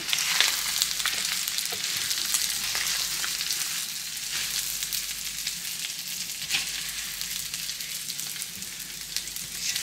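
Buckwheat groats frying in butter in a pan with pieces of meat and onion: a steady sizzle with fine crackles that eases slightly toward the end.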